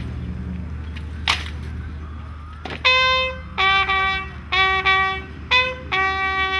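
Bugle call. A run of held brass notes switching between two pitches starts about three seconds in. Before it there is a low steady rumble with a couple of sharp knocks.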